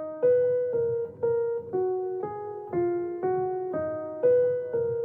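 Intro music: a simple piano or electric-keyboard melody, one note about every half second, each struck and left to fade.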